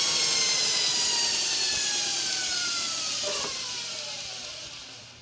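TW-90 knife belt grinder spinning down after being switched off. Its whine falls steadily in pitch, and the running noise fades out over the last couple of seconds.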